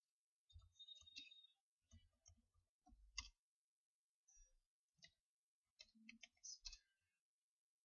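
Faint computer keyboard typing: irregular clusters of keystroke clicks, with pauses between words.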